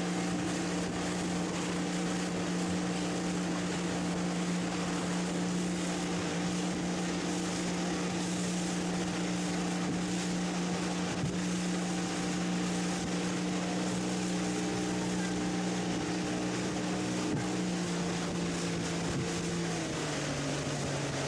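Motorboat engine running at a steady speed over the rush of water and wind, its pitch dropping as it slows near the end.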